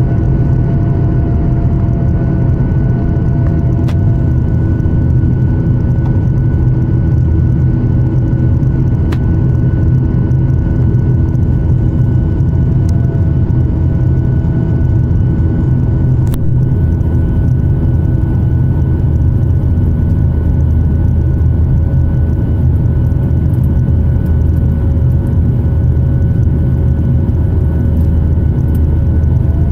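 Boeing 737 MAX 8's CFM LEAP-1B jet engines at climb power, heard inside the cabin over the wing just after takeoff: a loud, steady rumble with a steady whine.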